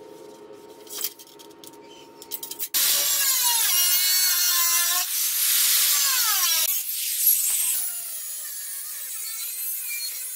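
Corded angle grinder with a cutting disc slicing through a steel sheet, starting suddenly after a few light clicks. Its whine dips in pitch again and again as the disc bites into the metal, then settles a little quieter for the rest of the cut.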